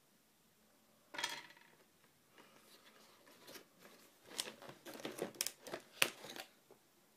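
Plastic Play-Doh toys and tools being handled: a short scrape about a second in, then a run of small clicks and snips, thickest near the end.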